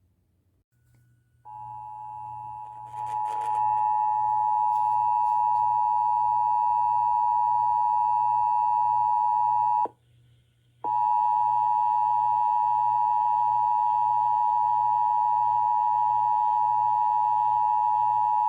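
Emergency Alert System attention signal: a steady two-tone alert, 853 and 960 Hz sounding together, starting about a second and a half in. It cuts out for about a second near the middle, then resumes and holds, with a low hum underneath.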